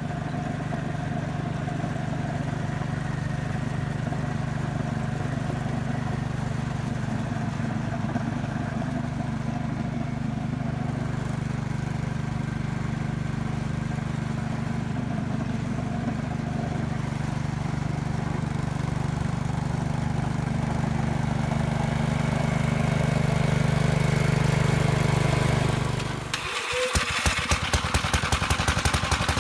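Gravely L8's single-cylinder engine running steadily at working speed while driving the snowblower. About three seconds before the end the engine note drops and it settles into a slow idle with separate, popping firing beats.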